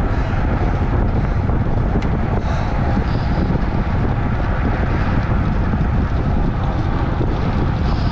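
Steady wind noise buffeting a bike-mounted action camera's microphone at racing speed in a bicycle criterium bunch.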